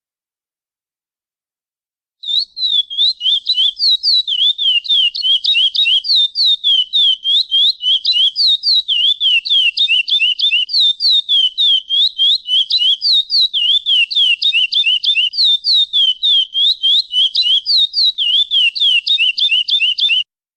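Curió (chestnut-bellied seed-finch) giving a long, fast run of short, downward-sweeping chirps, several a second, a pialada call series. It starts about two seconds in and stops suddenly just before the end.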